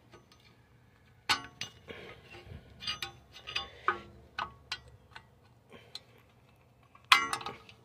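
Irregular sharp metal clicks and clinks, about a dozen, with short ringing: a screwdriver pushing and prying a parking-brake shoe return spring on a rear brake backing plate, working it into its hook. The loudest cluster comes about seven seconds in.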